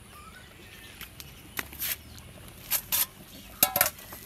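Bangkaew puppies lapping and slurping milk from a shared bowl, heard as a few short wet bursts about a second apart, the last with a brief squeak near the end.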